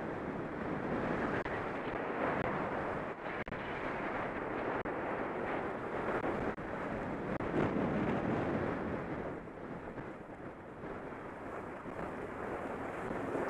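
Wind rushing over a head-mounted camera's microphone while skiing downhill, mixed with skis scraping over packed snow. The rush swells and eases, quieter for a few seconds late on.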